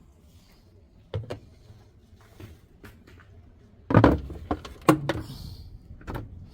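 Knocks and clatters of parts being handled while a top-loading washing machine is taken apart: two sharp knocks about a second in, a louder cluster of clanks around four to five seconds in, and one more knock near the end.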